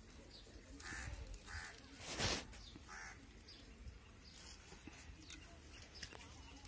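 Crows cawing three times in the background, harsh calls about a second, a second and a half and three seconds in. A brief loud scratchy noise burst about two seconds in, with small clicks scattered through the rest.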